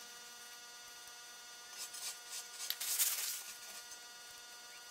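Small brush stroking dye stain onto bare wood: a few faint swishes of bristles about two and three seconds in, over a faint steady hum.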